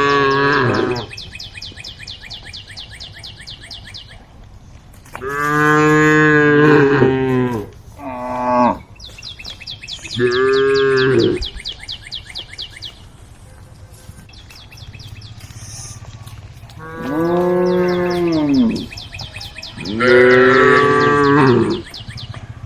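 Cows mooing: about six loud, drawn-out moos of one to two seconds each, some swelling and falling in pitch, with short gaps between them.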